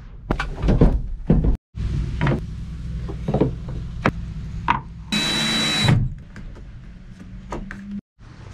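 Wooden knocks and clatter of boards and parts being handled, and about five seconds in a power tool runs for under a second with a high whine.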